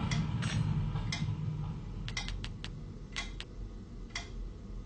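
A series of light, unevenly spaced clicks, with a quick run of several about two seconds in, over a low hum that fades out within the first two seconds.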